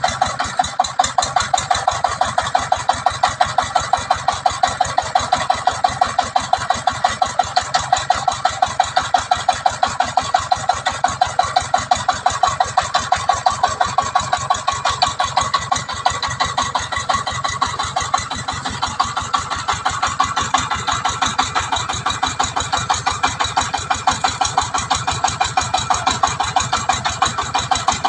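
Single-cylinder diesel engine of a công nông farm truck chugging steadily, an even run of rapid beats, as the truck crawls up a rocky slope.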